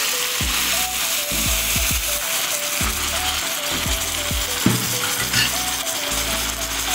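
Thick coconut milk sizzling with a fine crackle in a hot frying pan around a piece of fried fish, just poured in on top of the frying oil. Background music with a simple repeating melody plays alongside.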